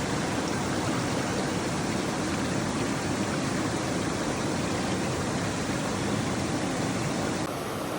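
Mountain stream rushing steadily, an even water noise with no distinct events, easing slightly near the end.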